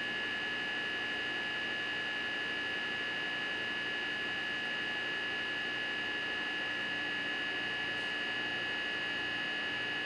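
A steady, unchanging hum with a constant high whine over a light hiss.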